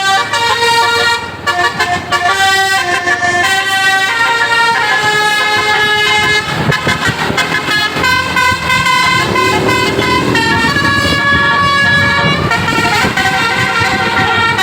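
Bus's basuri telolet horn set playing a melody, one sustained note after another, over the rumble of the bus.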